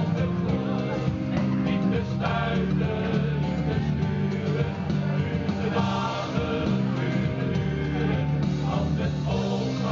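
Mixed choir singing a Dutch-language pop song in the open air, over an instrumental accompaniment with a steady bass line.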